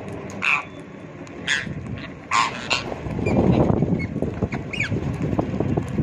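Rose-ringed (Indian ringneck) parakeets giving short, harsh screeches, four in the first three seconds and one more near the five-second mark. A low rustling noise swells about midway.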